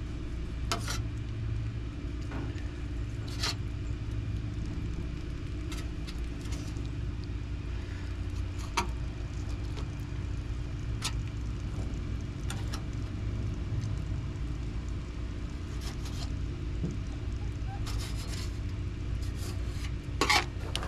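A steady low motor hum runs throughout, with scattered light clicks and taps of a fillet knife on a stainless-steel cleaning table as the bloodline is cut out of a black drum fillet.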